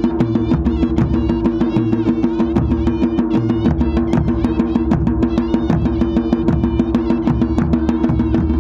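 Two large Himachali dhol drums beaten with sticks in a quick, steady rhythm, with a high wavering melody from a wind instrument over a steady held drone: traditional devta procession music.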